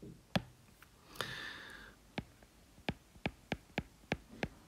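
Faint sharp clicks of a stylus tip tapping on a tablet's glass screen, a few scattered at first, then about three or four a second in the second half as the pen writes. A short soft hiss comes about a second in.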